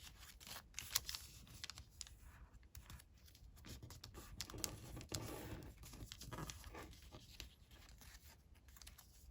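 Square of colored origami paper being folded and creased by hand: soft rustling broken by short, sharp crinkles and taps, busiest about halfway through.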